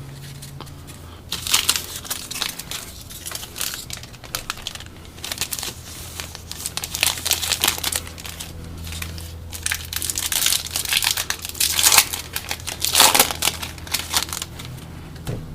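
Plastic foil wrapper of a Topps Opening Day baseball card pack crinkling in irregular spurts as it is handled and opened.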